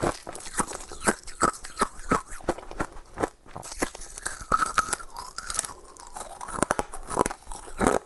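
Ice being bitten and chewed close to the microphone: sharp, irregular crunches, several a second.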